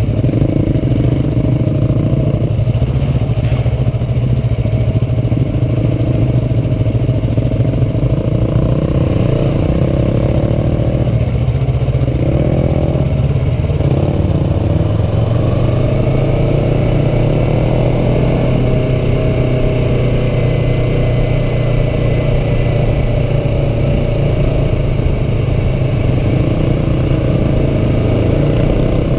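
Motorcycle engine running steadily while being ridden, its pitch rising and falling a little with the throttle, with wind noise over it.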